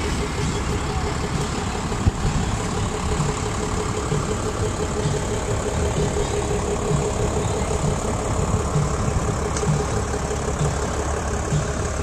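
A vehicle engine running steadily at low speed: a constant low rumble with a steady hum over it.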